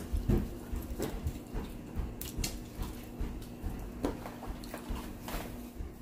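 King crab shell cracked and picked apart by hand, with irregular small cracks and clicks of shell and wet chewing.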